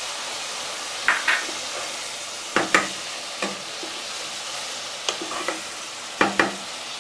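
Chopped water lily stems sizzling in hot oil in a pan while being stir-fried, with a utensil scraping and knocking against the pan every second or two over the steady sizzle.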